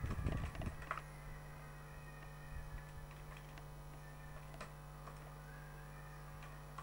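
Faint computer keyboard keystrokes: a quick run of clicks in the first second, then a few scattered clicks, over a steady low hum.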